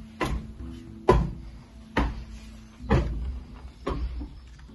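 Footsteps climbing steep open-tread wooden stairs, about one heavy step a second, each a sharp knock on a wooden tread.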